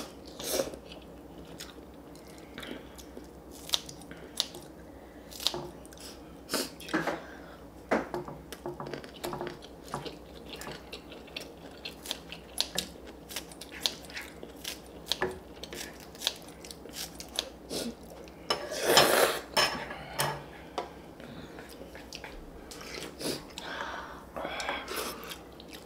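Two people eating ramen: noodles and soup slurped, chewing, and chopsticks, scissors and ladles clicking against bowls and a metal pan in many short sounds. The loudest is a noisy burst of about a second, about 19 seconds in.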